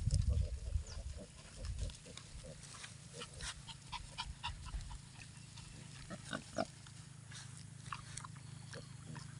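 A sow and her litter of piglets calling, many short grunts and squeals scattered throughout. A low rumble on the microphone during the first two seconds.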